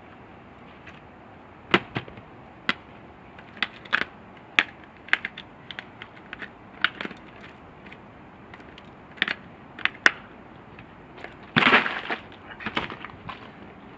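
Plastic cooler box being packed with ice: scattered sharp clicks and knocks, and a short crunching rattle a little before the end.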